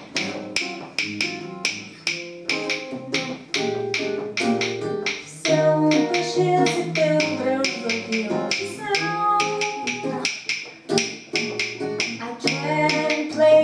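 Acoustic guitar strumming jazz chords, a little out of tune, over a steady beat of sharp percussive clicks, about three a second.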